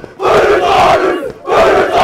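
Haka: many voices shouting together in unison, in forceful phrases about a second long with short breaks between them.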